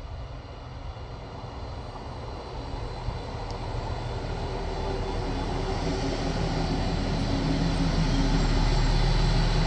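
Trenord ATR 125 diesel railcar arriving: its diesel engine hum, with several steady tones, and its running noise grow steadily louder as it approaches and draws alongside.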